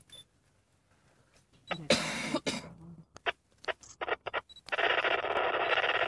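A short rush of noise about two seconds in and a few sharp clicks, then near the end a steady, narrow-band hiss of two-way radio static comes on.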